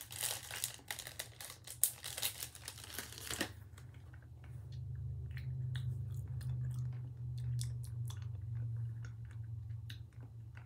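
Plastic candy bag crinkling and rustling for about three seconds as a piece of hard yuzu candy is taken out. Then light clicks of the hard candy in the mouth, over a low steady hum.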